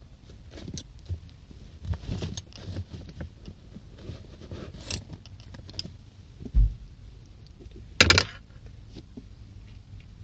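Small clicks and scrapes of a thin metal tool prying at a plastic horn button set in a car steering wheel. A dull thump comes about six and a half seconds in, and a sharp metallic clatter, the loudest sound, about eight seconds in.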